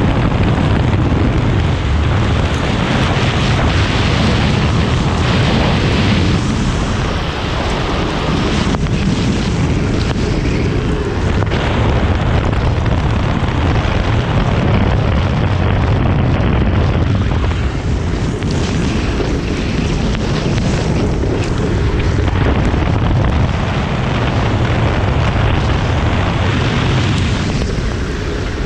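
Heavy wind buffeting and rushing on an onboard microphone as a drift trike runs at speed on a wet road, with the hiss of its wheels on the wet tarmac underneath. No engine is heard.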